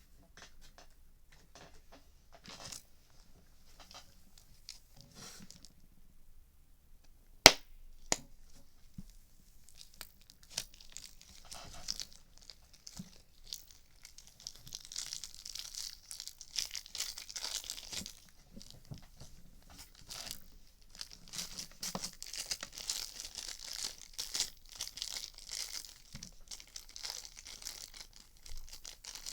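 Irregular popping and crackling, with one sharp, loud pop about seven and a half seconds in, then denser, louder crackling from about ten seconds on.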